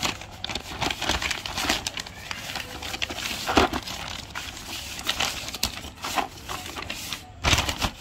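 Plastic courier mailer bag crinkling and rustling as hands pull it open, a run of irregular crackles with a louder burst about halfway through and another near the end.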